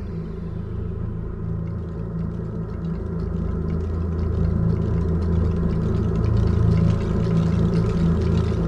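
Deep, steady rumbling drone of an ambient film soundtrack, made of low held tones that slowly grow louder.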